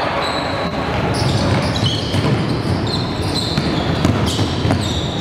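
Sounds of a basketball game on a gym court: the ball bouncing, with short high squeaks scattered through, over a steady background din.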